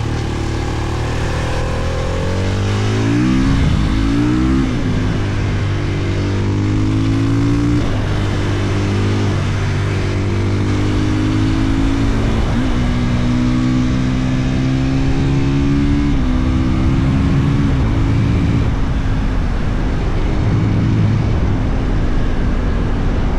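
2022 Husqvarna FE 450's single-cylinder four-stroke engine pulling hard while riding. The note climbs and drops back several times as the gears change.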